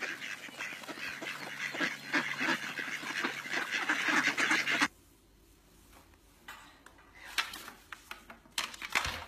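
A large flock of ducks quacking, many calls overlapping into a busy clamour, which cuts off suddenly about five seconds in. After that only a few faint knocks are heard.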